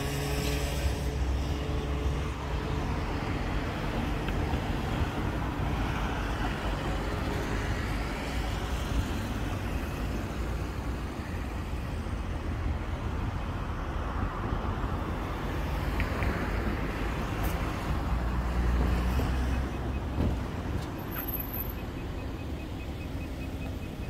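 Steady road-vehicle noise with a low rumble and no speech.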